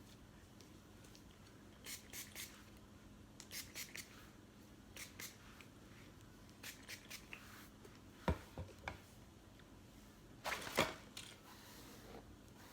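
Short hissing squirts from a trigger spray bottle of wig spray, in quick groups of two to four, with a few soft knocks in the middle and a longer, louder squirt near the end.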